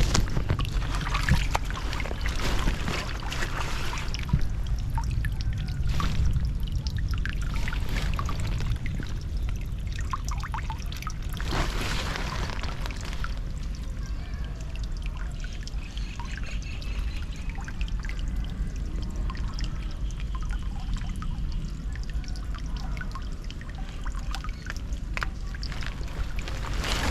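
Floodwater pouring and gurgling steadily down a culvert drain, with scattered short splashes.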